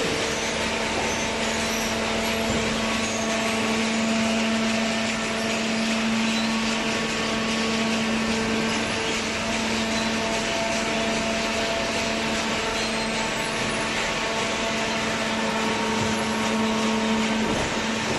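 Hydraulic baling press running steadily: its electric motor and hydraulic pump give a constant hum with a few steady tones over a broad hiss.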